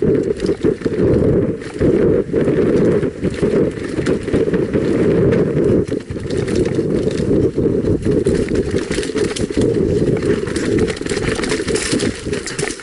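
Mountain bike descending a rough forest singletrack: a loud, continuous rumble from the tyres and frame, with the bike rattling and knocking over roots and bumps.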